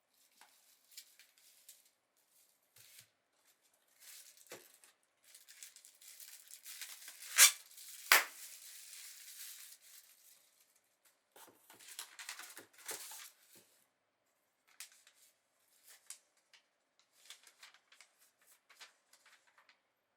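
Packaging of an earphone box being opened and handled: rustling, scraping and tearing of cardboard and plastic, with two sharp snaps close together about seven seconds in, then lighter rustles and small clicks.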